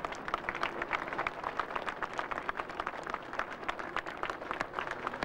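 A roadside crowd applauding, many separate hand claps overlapping irregularly.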